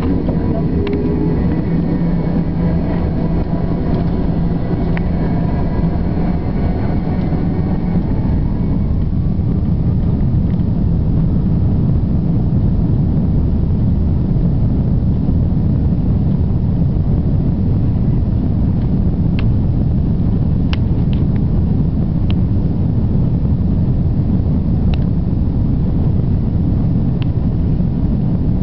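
Cabin sound of an Airbus A340-600's four Rolls-Royce Trent 500 engines at the start of the takeoff roll. Engine whines rise and then fade over the first eight seconds or so into a steady loud rumble, with a few sharp clicks past the middle.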